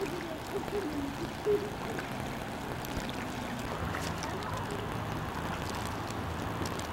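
Water sloshing and light paddle splashes as kayaks come in to a dock, with a single sharp knock about a second and a half in. A steady low hum sets in about halfway through.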